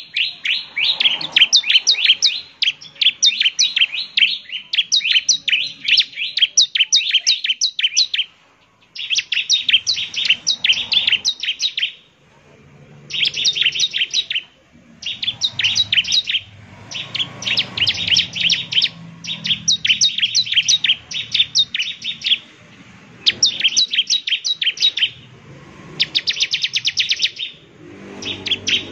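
Bar-winged prinia (ciblek) singing: long runs of rapid, sharp, high chirps in phrases a few seconds long, split by short pauses.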